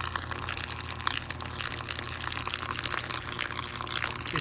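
Salt water crackling and sizzling as mains current shorts across a TV cable converter box's circuit board sitting in it, a dense run of sharp crackles over a steady low hum.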